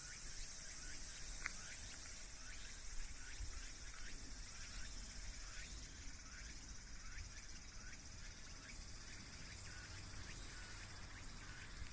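Steady, high-pitched insect chorus, with short falling chirps repeating about twice a second.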